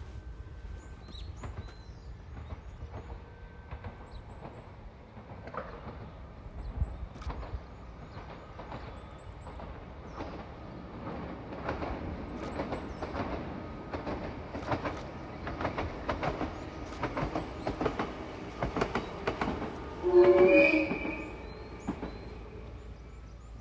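Kumoya 443 electric inspection car passing along the line, its wheels clicking rhythmically over the rail joints and growing louder over several seconds. About twenty seconds in comes a short horn blast, the loudest sound.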